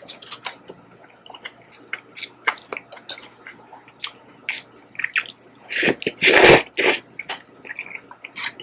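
Close-miked wet mouth sounds of eating jajang noodles: a run of short sticky smacks and clicks, with a louder, longer slurp of noodles about six seconds in.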